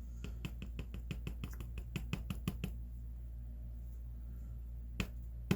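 Rapid run of small clicks, about ten a second for two and a half seconds, as the pins of a True Guard padlock are worked out of the gutted lock, then two sharp clicks near the end.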